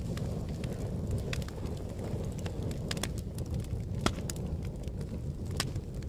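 Fire crackling: a steady low rumble of flames with scattered sharp pops, the loudest about four seconds in.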